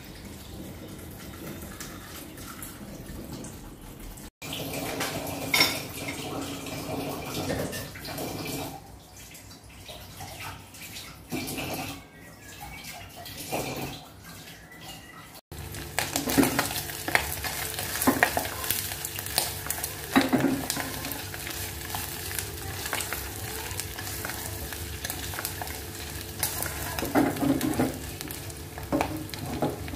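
Chopped pork frying in a saucepan on a gas burner, sizzling steadily, with wooden chopsticks stirring and tapping against the pan and a steady low hum underneath; the frying starts about halfway through. Before it come scattered knocks and handling sounds.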